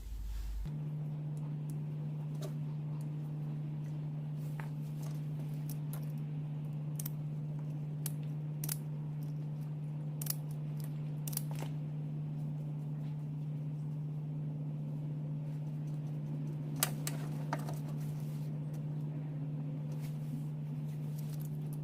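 Scattered small clicks and taps from handling wires and tools during speaker-wire soldering and taping, over a steady low hum that starts abruptly just under a second in.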